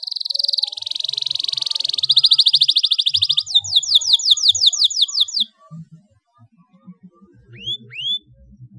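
Domestic canary singing: a long, fast, high trill that starts as a buzzing roll and turns into quick separate rising notes, breaking off about five and a half seconds in. Two short rising chirps follow near the end.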